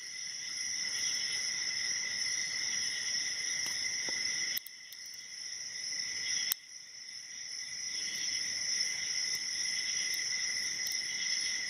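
Crickets chirring steadily in a high, pulsing trill that breaks off abruptly twice and starts again. A few faint clicks are heard over it.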